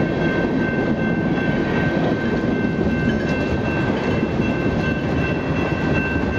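Freight train's cars rolling past close by: a steady rumble of steel wheels on the rail, with a thin, steady high-pitched ring above it.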